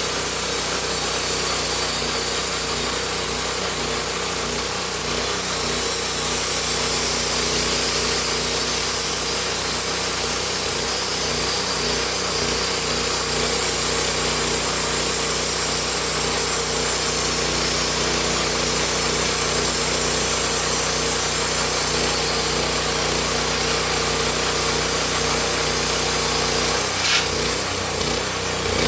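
Homemade sawmill running steadily under its engine, the blade sawing through a log with a loud hiss over the engine's hum. A sharp click comes near the end as the sound wavers briefly.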